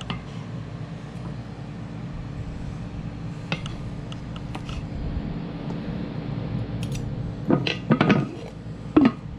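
Kitchen clatter: a few light clinks of dishes and utensils, then a cluster of louder knocks near the end, over a steady low hum.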